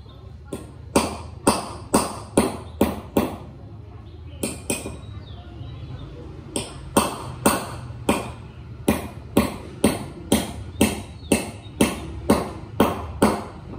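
Hammer blows on metal, sharp ringing strikes about two a second, over a low steady hum. A first run of about seven blows, two lighter taps, then after a pause of about two seconds a longer run of about fifteen blows.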